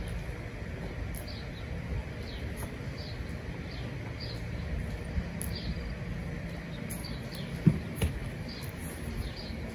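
A small bird chirping again and again in short falling notes, about one or two a second, over a steady low rumble. A little after seven seconds in come two dull thumps, the first the louder, as the horse puts its head down into its hay box.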